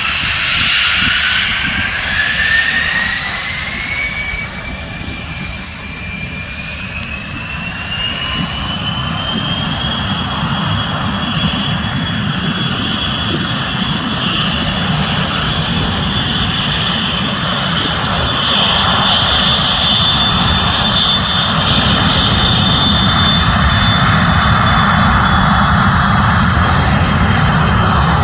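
Dassault Falcon 7X's three Pratt & Whitney Canada PW307 turbofans spooling up for takeoff. A whine climbs steadily in pitch over the first ten seconds or so, then holds at a high steady pitch over a deep rumble that grows louder toward the end.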